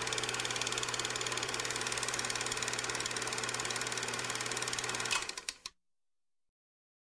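Old film projector running: a fast, even mechanical clatter over a steady low hum, which breaks into a few separate clicks and cuts off suddenly about five and a half seconds in.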